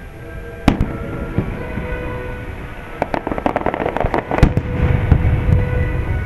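Fireworks: a sharp bang about a second in, then a dense run of rapid crackling from about three seconds in, capped by a loud bang, as a crackling shell bursts.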